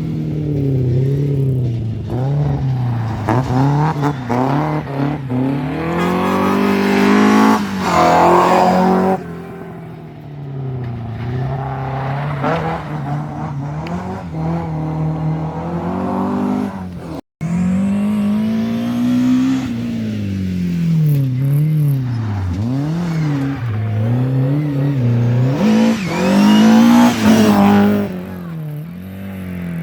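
Rally car engines being driven hard on a stage. The pitch climbs under acceleration, then drops sharply on lifts and gear changes, over and over. About 17 seconds in there is an abrupt cut to another car doing the same.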